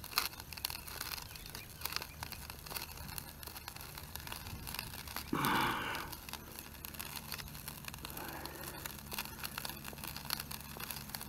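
An adjustable wrench turning a nut on a bolt through a timber rail post, with irregular small metal clicks and scraping as the wrench is worked round. A short, louder sound comes about five and a half seconds in.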